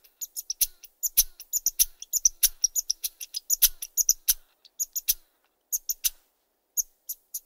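Two or more hoary marmots giving short, sharp, high-pitched whistles close up, many in quick succession and some overlapping, thinning to a few spaced calls near the end. These are the whistled alarm calls marmots are known for.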